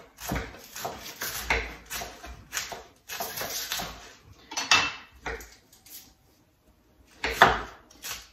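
Kitchen knives cutting cabbage and onion on cutting boards, in irregular knocks about two a second. The knocks stop for a second or two after the middle, then a hard knock comes near the end.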